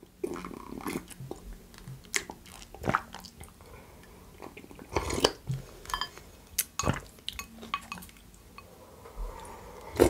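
Close-miked eating: chewing with irregular soft wet clicks and smacks, and sips of tom yum broth drunk straight from the bowl.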